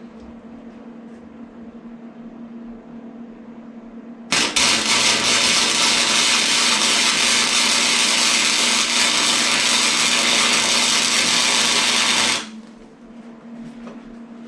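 Flux-core wire-feed welder arc laying a bead on the steel motorcycle frame: a loud steady hiss that starts abruptly about four seconds in and cuts off about eight seconds later. A low steady hum runs underneath.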